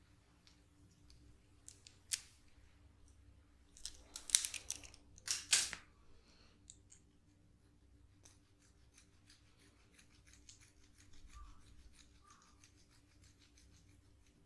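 Close-miked hand-massage sounds: scattered crisp clicks and rustles, with two louder crackly bursts about four and five and a half seconds in.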